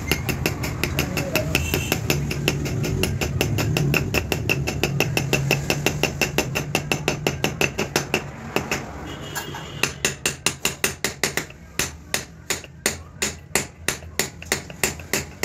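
Hammer blows on a steel drift, driving a wheel bearing into an aluminium motorcycle wheel hub. The strikes are rapid and even, about four or five a second, becoming more spaced and sharper after about ten seconds.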